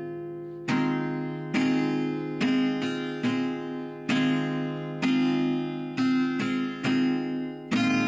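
Background music: an acoustic guitar strumming chords, each chord struck sharply and left to ring out before the next, about a dozen strokes in all.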